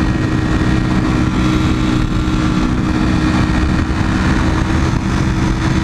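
Ducati Panigale's V-twin engine pulling at a steady speed in third gear, its pitch holding level, with wind rush over the microphone.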